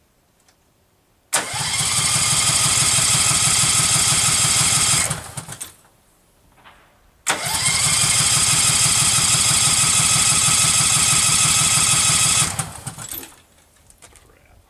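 Case 446 garden tractor engine cranked on the starter twice, about four and five seconds each, with an even rapid chugging, without catching: no spark, which the owner takes for a spark problem.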